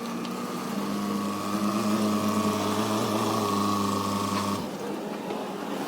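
A motor running with a steady hum, which cuts off suddenly about four and a half seconds in.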